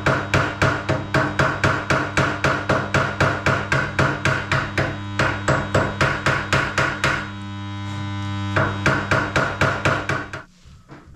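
Hand hammer chipping welding flux slag off a fresh cast iron weld on a radiator neck: quick, evenly spaced ringing metal strikes, about four a second. The strikes pause briefly about seven seconds in and stop shortly before the end, over a steady electrical hum.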